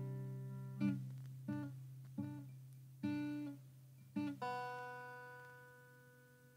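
Acoustic guitar music: single plucked notes over a sustained low note, ending on a last note that rings out and fades away.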